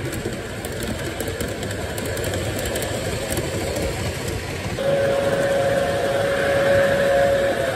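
Lionel O-gauge model train rumbling along three-rail track as its wheels roll past. From about five seconds in, the approaching locomotive's sound system plays a held horn note lasting a few seconds, and the sound grows louder.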